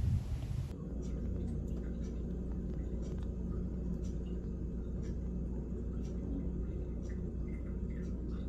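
A brief rumble of noise that cuts off suddenly under a second in, then a steady low engine hum with a few faint clicks.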